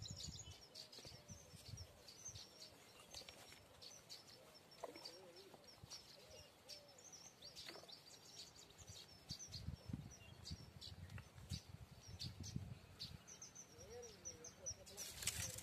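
Small birds chirping: many short, high calls repeating all through, faint. A low rumble comes and goes now and then.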